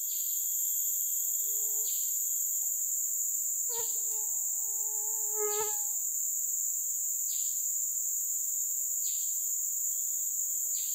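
Tropical forest insects droning steadily at a high pitch. Over the drone, a short falling chirp repeats about every two seconds, and a brief low pitched call comes near the middle.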